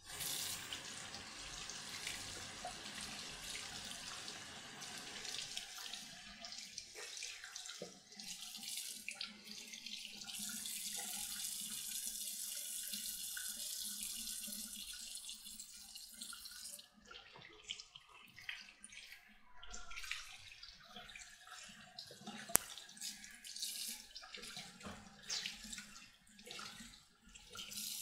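Bathroom sink faucet turned on, its water running into the basin while a makeup sponge is rinsed and rubbed under the stream. The flow sounds steady at first. From about two-thirds of the way in it becomes broken and uneven, splashing with small clicks as hands and sponge work in the water.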